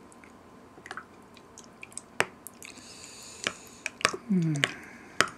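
A spoon scooping thick soy-milk yogurt in a glass measuring beaker: several sharp clicks of the spoon knocking the glass, with wet, squishy scraping between. A short falling hum from a voice a little past the middle.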